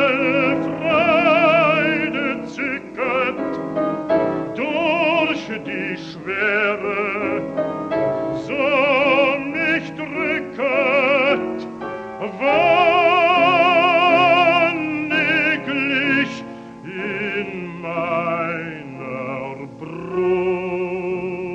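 Baritone voice singing a slow German art song with wide vibrato, with piano accompaniment. It is an old 1943 recording with a dull top end.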